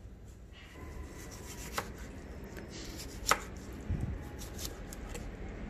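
Kitchen knife slicing through a smashed cucumber on a cutting board: irregular knocks of the blade through the cucumber onto the board, the sharpest about two and three seconds in.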